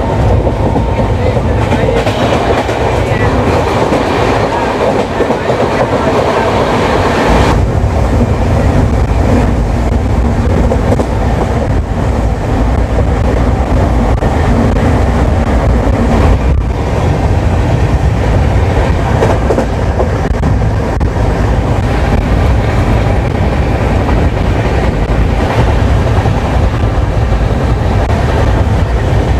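Express passenger train running along the track, a loud, steady rumble of wheels on rail. About seven seconds in, the rumble turns deeper and heavier.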